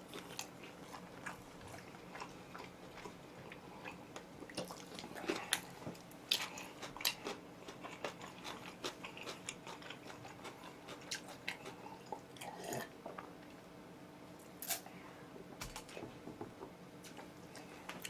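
A person chewing and biting into oven-roasted chicken close to the microphone: irregular soft crunches and clicks, with a few louder bites scattered through.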